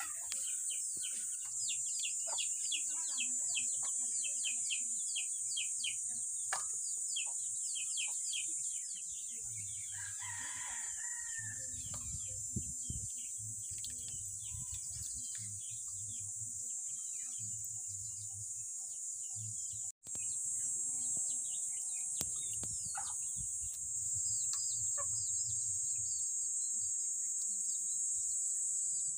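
Rural yard ambience: a rooster crows once about ten seconds in, over many small bird chirps and a steady, high-pitched insect drone.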